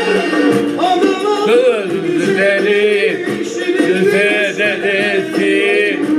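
Turkish folk music: steady instrumental accompaniment, and from about a second in a male voice sings long, ornamented, wavering phrases without clear words.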